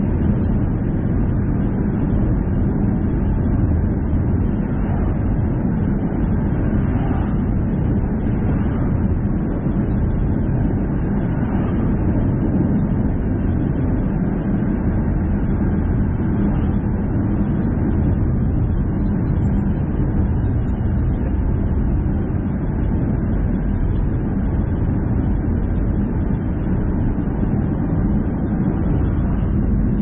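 Car driving steadily along a highway: a constant low rumble of engine and road noise.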